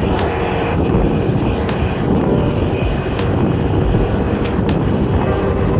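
Steady wind rush on the microphone mixed with the running of city traffic, as heard from a bicycle moving along a street.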